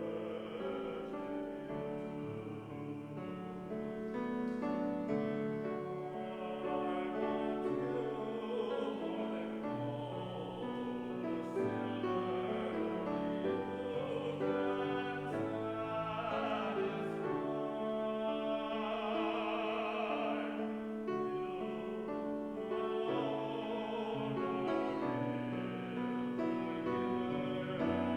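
Slow church music: held chords and a melody on keyboard, steady and unhurried.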